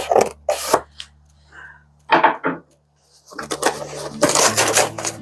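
Parts and packaging of a DeWalt planer being handled: a few sharp clicks and knocks near the start, then denser rattling and clattering in the last couple of seconds.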